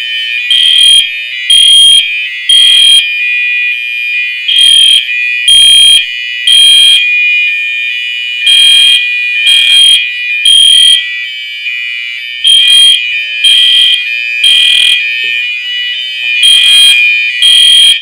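Two fire alarm horns sounding together: a Cerberus Pyrotronics MTL multi-tone horn strobe set on its high-low tone, and an EST Genesis horn sounding code 3. The Genesis horn gives the temporal pattern, three half-second blasts and then a pause, over the steady tone of the multi-tone horn. Both cut off at the very end as the alarm is silenced.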